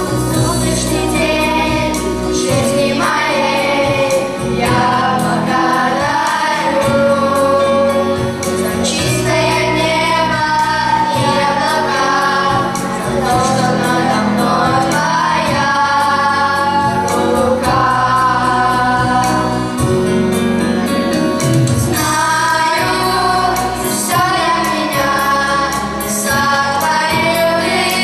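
A choir singing a hymn with keyboard accompaniment.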